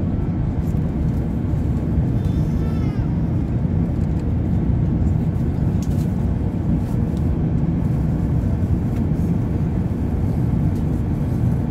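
Steady low rumble inside the cabin of an Airbus A380 climbing after takeoff: engine and airflow noise heard from a window seat over the wing.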